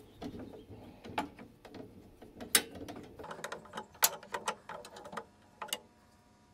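Hand screwdriver turning a screw into a wooden sewing-machine cabinet: quiet, irregular clicks and ticks as the driver turns and the screw bites, stopping shortly before the end.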